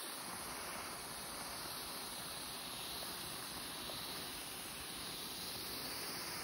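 Handheld garment steamer giving off a steady hiss of steam as it is passed over a crochet shawl to steam-block it.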